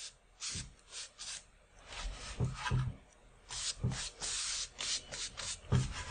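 Decorating brush stroking wet gesso onto a stretched canvas: a run of short, scratchy swishes, with a few soft low knocks as the canvas is handled.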